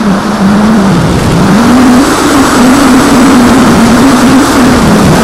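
Electric motor and propeller of an AXN foam RC plane in flight, heard from its onboard camera. A buzzing hum dips in pitch about a second in, then rises and holds fairly steady, dipping again near the end. Loud wind noise on the microphone runs under it.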